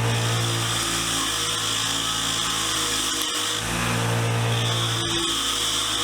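Wire wheel running and scrubbing rust off a small steel pipe wrench, a steady motor hum under a hissing scratch. The scratch drops out briefly about three and a half seconds in, then picks back up.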